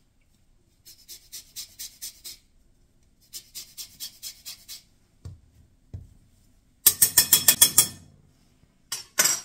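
Lemon peel being grated on a long metal rasp grater, in runs of quick scraping strokes about six a second. Two soft knocks come in the middle, and a louder run of strokes comes near the end.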